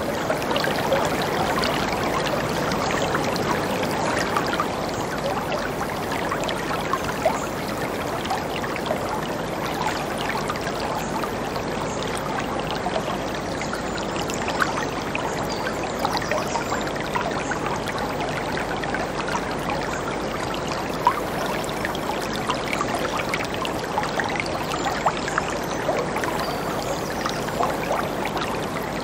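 Whitewater river rapids rushing steadily over and around boulders, with brief sharper splashes standing out now and then.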